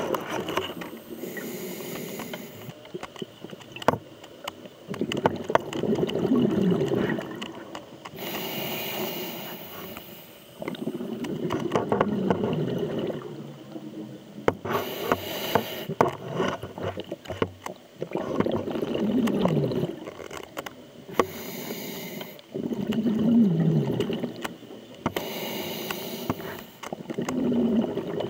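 Scuba diver breathing through a regulator underwater: a hissing inhale followed by a bubbling, gurgling exhale, about five breaths in a slow, even rhythm, with scattered small clicks.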